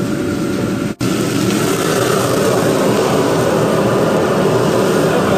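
Steady roar of a commercial gas wok burner, with fish sizzling as they fry in oil in the wok. The sound drops out for an instant about a second in.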